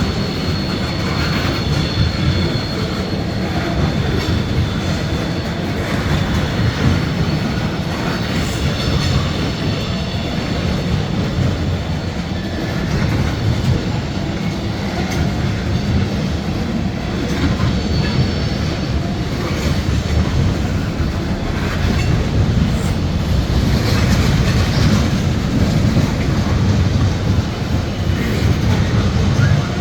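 Freight train cars rolling past: a steady heavy rumble with wheels clicking over rail joints and a thin high wheel squeal.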